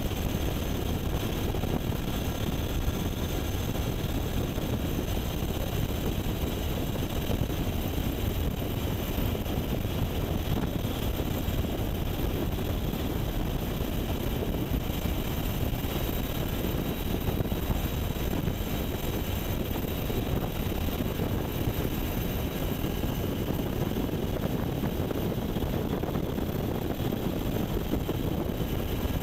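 Sikorsky UH-60 Black Hawk helicopter in flight, heard from on board: a steady, unbroken din of its rotors and twin turbine engines.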